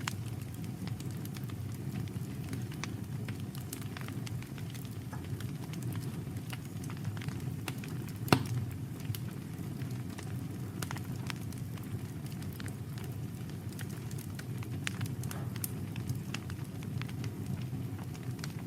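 Campfire crackling, with many small sharp pops over a steady low rumble. One much louder pop comes about eight seconds in.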